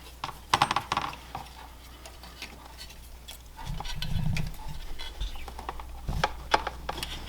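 Scattered light clicks and taps of small plastic and metal fuel pump parts being handled and pushed together by hand, with a brief low murmur about four seconds in.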